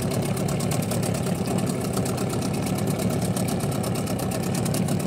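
Small outboard motor idling steadily, with a fast, even pulse.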